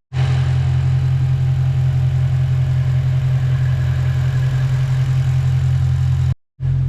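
BMW E92 M3's V8 idling steadily on freshly replaced fuel injectors, extremely smooth. The sound drops out briefly near the end.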